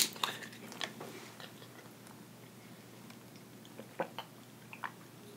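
Plastic water bottle cap twisted open with a sharp click, followed by a few faint crackles; about four seconds in, a few short clicks and gulps as water is drunk from the bottle.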